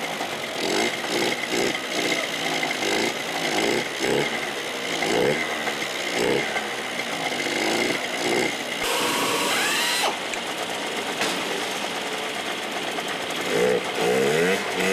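Engine assembly-line noise: pneumatic tools on overhead air hoses whir up and down again and again. About nine seconds in comes a hiss lasting about a second.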